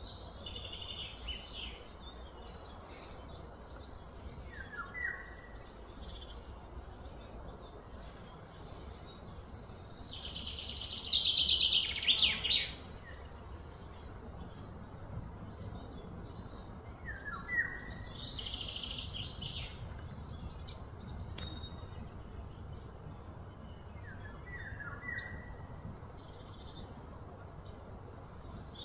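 Birds chirping and calling, with short falling notes every few seconds. A loud, rapid pulsing trill about ten seconds in is the loudest sound, over a faint steady low hum.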